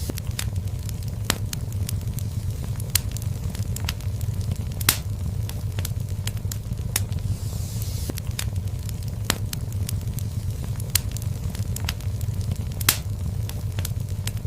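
Wood fire burning in a fireplace: a steady low rumble of the flames with irregular sharp crackles and pops, two louder pops about five seconds and thirteen seconds in.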